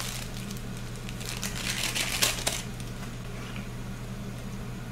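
Plastic sauce packet crinkling as it is squeezed and emptied over the pan, mostly in the first two and a half seconds. A low steady hum runs underneath.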